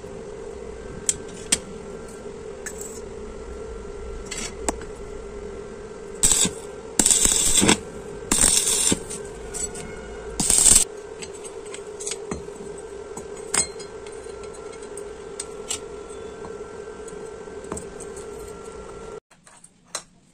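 Stick arc welding: about four short bursts of arc crackle, each under a second, as the square steel tube is tack-welded to the plate, over a steady hum, with a few sharp clicks of the rod on the metal. The hum stops near the end.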